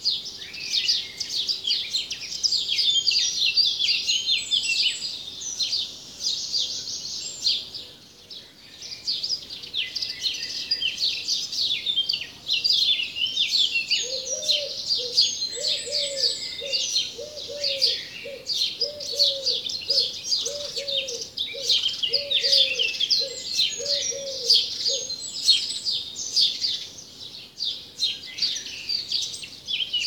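Many small birds chirping and singing at once, a dense, unbroken chorus of quick high notes. About halfway through, a lower call repeats roughly once a second for some ten seconds, then stops.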